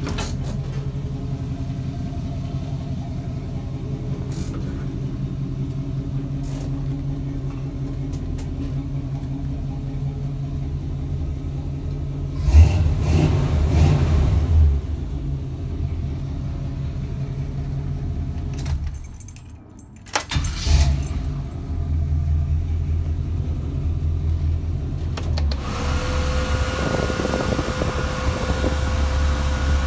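Chevy 350 small-block V8 in a Jeep CJ-7 idling steadily, heard from inside the cab, with a short rev about twelve seconds in. The sound drops away for a moment about two-thirds through, and near the end a steady whine joins the idle.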